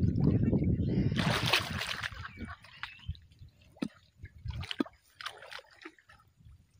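Water splashing and sloshing as a large giant snakehead is let go back into the lake: a burst of splashing about a second in, then scattered small splashes and drips that fade away.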